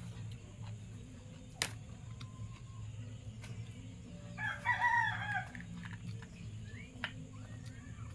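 A rooster crows once, about four and a half seconds in, a pitched call lasting about a second. A sharp click comes about a second and a half in, over a steady low hum.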